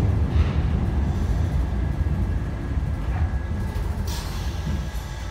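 MF67 metro train running on the track, heard from inside the carriage as a steady low rumble that slowly fades as the train slows. A short hiss comes about four seconds in.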